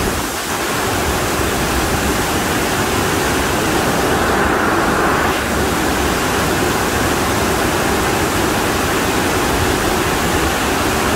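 Torrential monsoon rain pouring down in a steady, dense hiss.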